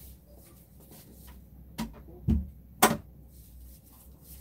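A room door being shut: a few light knocks, a dull thump a little over two seconds in, then a sharp latch click just before the three-second mark.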